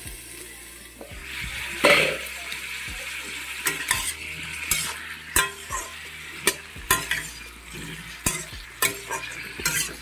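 Kohlrabi and potato pieces sizzling as they fry in oil in a metal kadai, while a metal spatula stirs them. From about three seconds in, the spatula clinks against the pan every half second or so.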